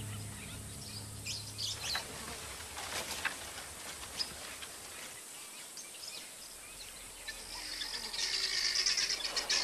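African bush ambience: scattered bird chirps over a faint insect background, then a dense, rapid high chattering chorus of birds or insects that builds over the last two seconds.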